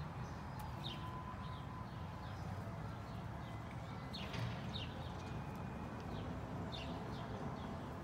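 Birds chirping outdoors: short, sharp, high calls dotted every second or so, more of them around the middle, over a steady low background hum.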